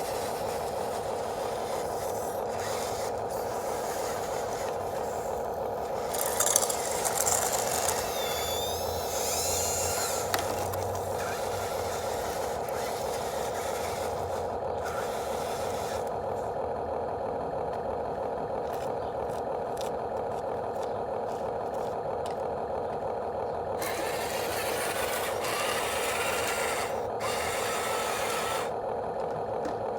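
Small electric motors and plastic gear trains of radio-controlled construction models whirring steadily, with louder spells of grinding and high, gliding servo whine twice, about six seconds in and again near the end.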